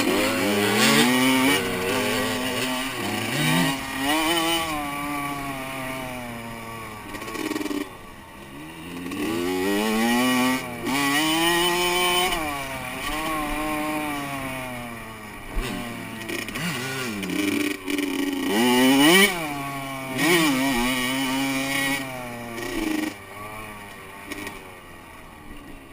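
Honda CR85 two-stroke dirt bike engine heard from on board, revving up and down with repeated quick drops in pitch as it shifts gears, over a haze of wind rush. Near the end the revs settle to a lower, steadier running.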